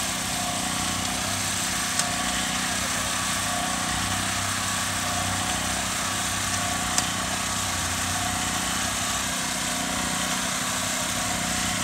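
Small gasoline engine running at a steady speed, with two short sharp clicks about two and seven seconds in.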